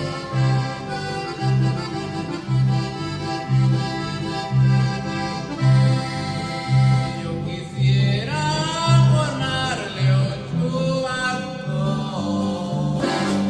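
Regional Mexican music played live: an electric bass plays a steady, evenly repeating bass line, with a sustained melody line over it that wavers in pitch about two-thirds of the way through.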